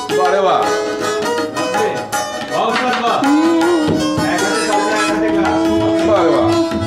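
Live music: an acoustic guitar played along with hand percussion. A long held note runs through the second half.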